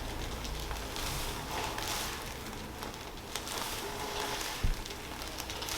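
Quiet room with faint rustling and one short, soft low thump about four and a half seconds in.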